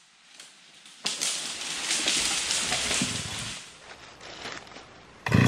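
A crunching, crackling noise of brush or wood being crushed, loud for about two and a half seconds, then fading to a few ticks. Just before the end a chainsaw engine cuts in suddenly and loud.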